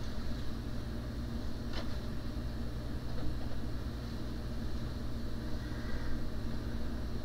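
Steady mains hum and fan noise from powered-up bench electronics, with a single sharp click about two seconds in.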